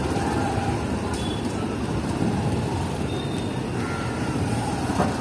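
Busy street traffic: motorbike and car engines running close by, a steady rumble.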